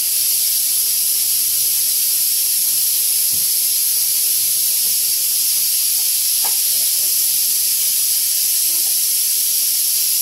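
Pressure cooker letting off steam through its whistle: a loud, steady hiss that starts suddenly and keeps going, the sign that the cooker has come up to pressure.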